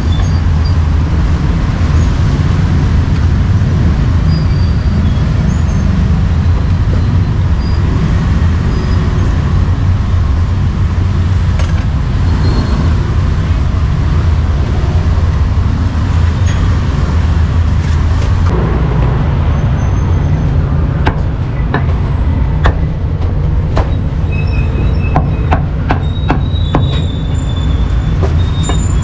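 Steady street-traffic noise, a loud low rumble of passing motorbikes and motor vehicles. In the last third, scattered sharp knocks of a cleaver on a wooden chopping board.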